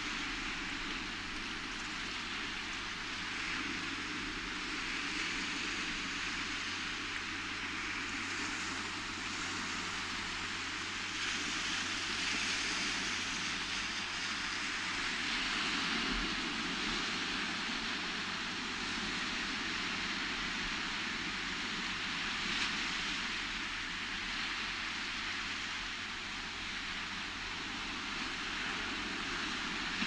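Ocean surf washing over a rocky shore: a steady rushing hiss that swells and eases slowly.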